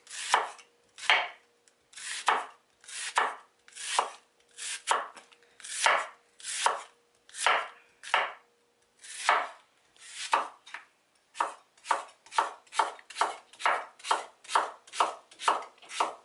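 Chef's knife slicing a red onion thin on a wooden cutting board, stroke after stroke, each cut ending in a knock of the blade on the board. The strokes come a little over once a second at first and quicken to about three a second in the last third.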